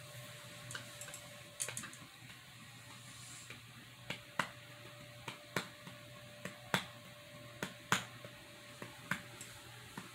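Sharp, irregular ticks, about two a second at uneven spacing, over a faint steady electrical hum.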